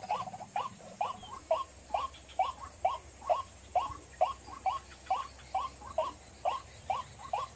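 White-breasted waterhen (ruak-ruak) calling: short curved notes repeated steadily, a little over two a second, now and then doubled.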